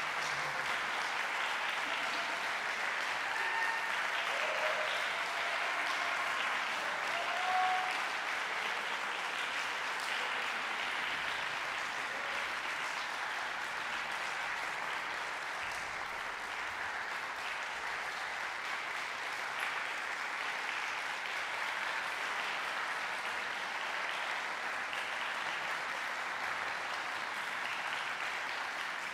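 Concert-hall audience applauding steadily after an orchestral performance.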